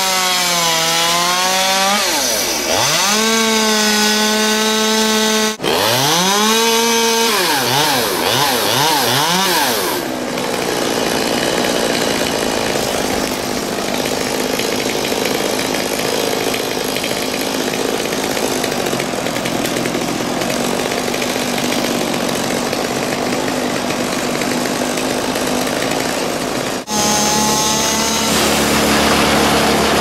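Chainsaw revving up and down several times, then held at full throttle in a long steady cut through poplar wood. Near the end the sound switches abruptly to a lower, steady engine: the wood chipper running.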